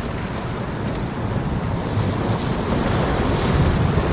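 Sea waves washing against a rocky shore, with wind buffeting the microphone; the low rumble swells louder in the second half.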